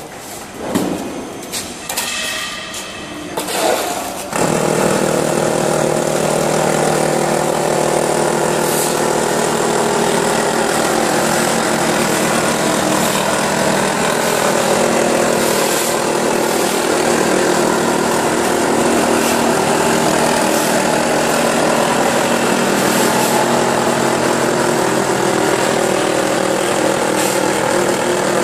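Automatic wall rendering machine: a few knocks and clinks, then its motor starts suddenly about four seconds in and runs with a steady hum as the mortar carriage climbs the mast, rendering the wall.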